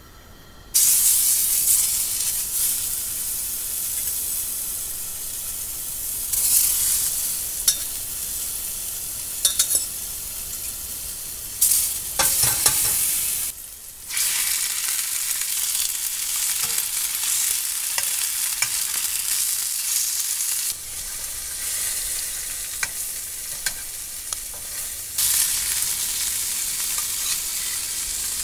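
Food sizzling in hot oil in a frying pan on a camp gas stove. The sizzle starts suddenly about a second in as food goes into the pan, drops away briefly near the middle, and starts again as carrot pieces are added. Scattered clicks and scrapes from a spatula run through it.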